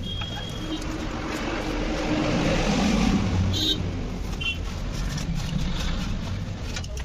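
Road traffic noise: a steady low rumble, with a vehicle going by that is loudest about three seconds in.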